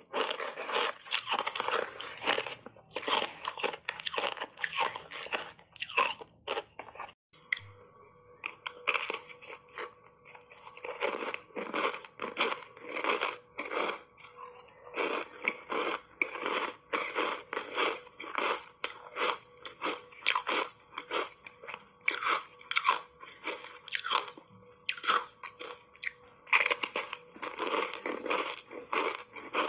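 Ice coated in matcha green tea powder being bitten and chewed, a rapid run of hard crunches one after another. There is a brief break about seven seconds in.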